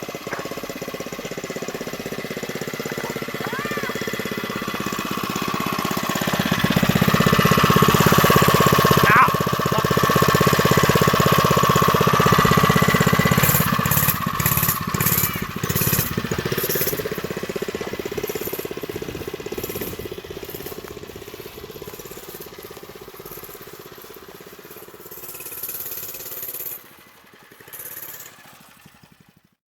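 Small single-cylinder four-stroke engine of a mini bike (a Predator 3 hp) running under way, growing louder for several seconds and then fading away as the bike rides off.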